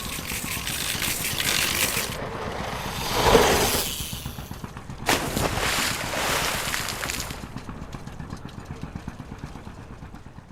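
A BMX bike and rider plunging off a pier into the sea. A rushing noise builds to a peak about three seconds in, then a sudden splash about five seconds in fades away over the next few seconds.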